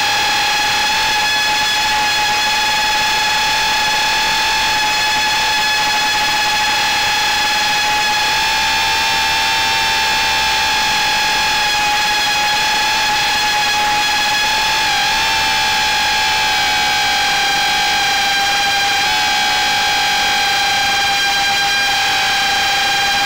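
The quadcopter's four DYS 1306 4000KV brushless motors spinning 3-inch Gemfan Flash props, picked up by the onboard camera: a steady high-pitched whine over a hiss. Its pitch wobbles slightly twice in the second half as the throttle shifts.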